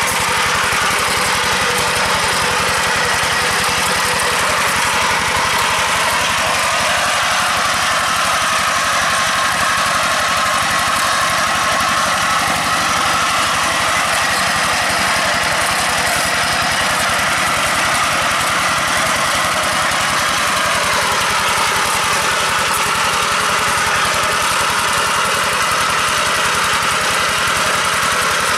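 Single-cylinder diesel engine of a two-wheel hand tractor (walking tractor) running steadily under load as it ploughs through a flooded rice paddy.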